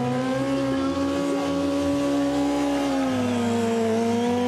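Sport motorcycle engine held at steady high revs during stunt riding, its pitch easing slightly about three seconds in and then holding.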